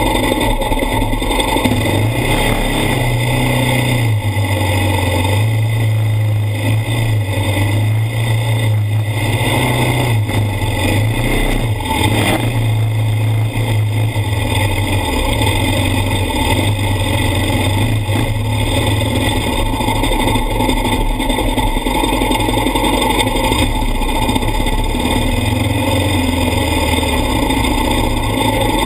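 ATV engine running continuously, its revs rising and falling as the throttle changes.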